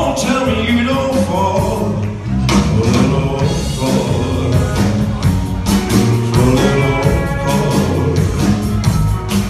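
Live rock and roll band playing with a singer: a steady drum beat and guitar under the vocal melody.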